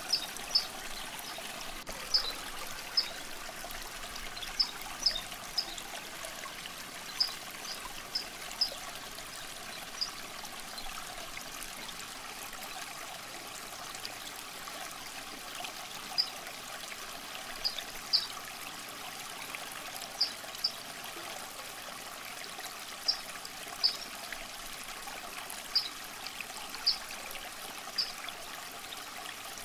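Water trickling steadily, with short high-pitched plinks popping out irregularly every second or two.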